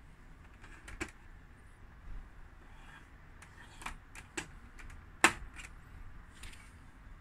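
Several separate clicks and taps of a Sencor S-4800 radio cassette recorder's telescopic antenna being lifted out of its recess on top of the plastic case and laid back in its slot, the sharpest click a little past five seconds in.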